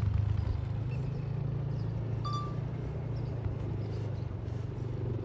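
A steady low engine-like rumble, with a short high tone about two seconds in.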